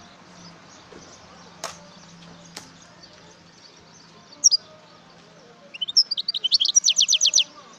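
European goldfinch calling: one short high call about halfway through, then near the end a fast run of repeated down-slurred notes lasting under two seconds. Two sharp clicks come before the calling.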